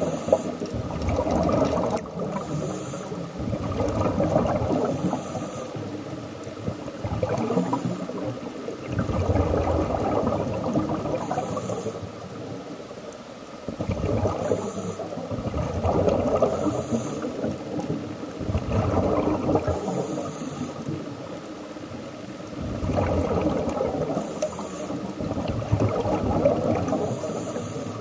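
Scuba diver breathing through a regulator underwater, in a regular cycle about every three seconds: a short, high hiss on each inhale, then a longer rush of exhaled bubbles.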